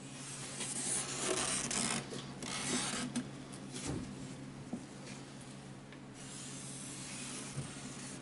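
Pencil scratching on plywood as it is run around the base of a PVC pipe to trace a circle, in several strokes over the first three seconds, then fainter.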